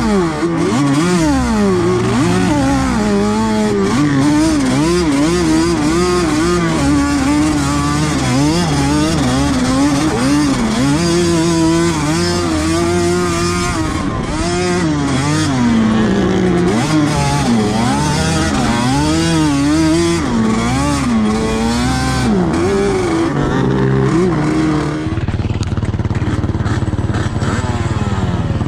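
Yamaha sport ATV engine being ridden hard over sand, its pitch rising and falling over and over as the throttle is worked. Near the end it settles to a steadier, lower idle as the quad stops.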